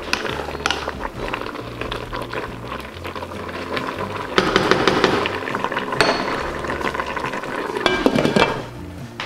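Wooden spoon stirring a pot of stewing squash and Swiss chard, scraping and knocking against the stainless-steel pot, with a glass lid set down on the pot near the end. Background music plays underneath.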